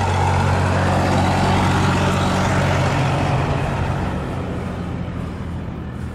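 Mi-24 attack helicopter flying overhead: a steady, loud drone of rotor and turbine that begins to fade about two-thirds of the way through as it moves away.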